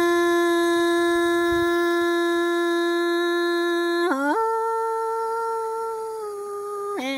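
A woman's voice singing Hmong kwv txhiaj, holding one long, steady note, then dipping and sliding up to a higher held note about four seconds in, and dropping to a lower note near the end.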